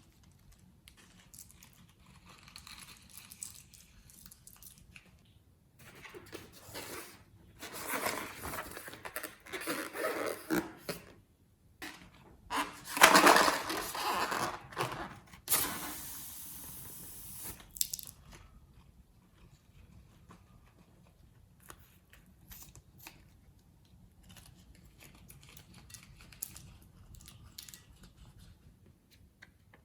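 Slime being worked by hand, giving crackling, crunching, squelchy noises in two longer spells a few seconds in and around the middle, the loudest about halfway through, with scattered faint clicks between.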